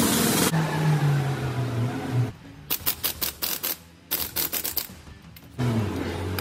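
Air impact wrench hammering in two bursts of rapid knocks, each about a second long, tightening the drop arm nut onto the steering box output shaft.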